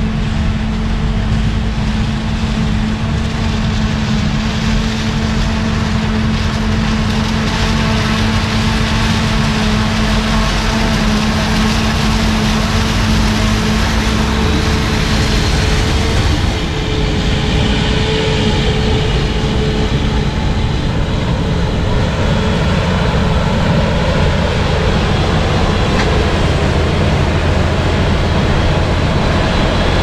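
Claas 990 forage harvester running under load while chopping corn and blowing silage, a loud steady machine drone with a steady hum. The sound changes about halfway through, when the hum drops away.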